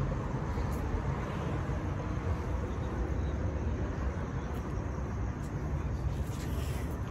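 Steady low rumble of outdoor city background noise, distant traffic.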